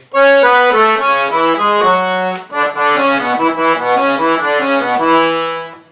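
Piano accordion playing a quick run of melody notes on its right-hand keyboard, with a brief break about two and a half seconds in, stopping near the end.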